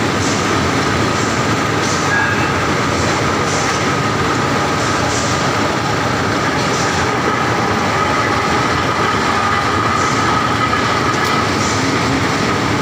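A hot rolling mill for steel rebar running, with red-hot bar passing through its rolling stands. The machinery makes a loud, steady din with a held whine and a faint hiss about once a second.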